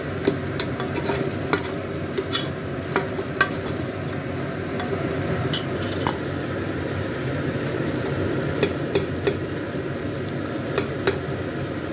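A metal ladle stirring thick beef gravy in an open aluminium pressure cooker, clinking sharply and irregularly against the pot, over the steady bubbling of the gravy on the flame.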